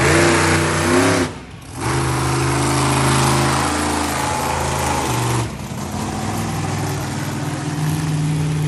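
Monster truck engine running loud and revving as the X-Treme Jim truck drives around the arena. The sound drops out briefly about a second and a half in and changes abruptly about five and a half seconds in.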